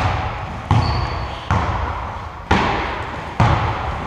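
Basketball bounced on a gym floor: five bounces about a second apart, each echoing in the hall. A brief high squeak sounds about a second in.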